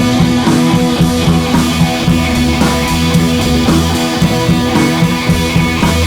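Background music: rock with electric guitar and a drum kit keeping a steady beat.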